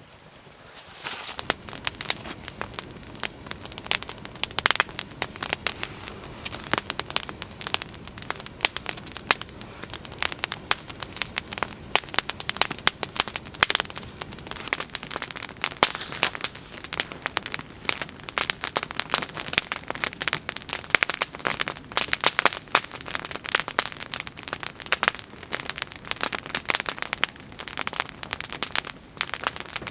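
Wood fire crackling: a steady hiss with many sharp, irregular snaps, starting about a second in.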